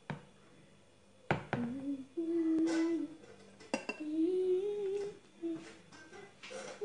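A girl humming a few long, gently wavering notes, starting about two seconds in, with three sharp taps of a metal spoon against a ceramic dish in the first four seconds.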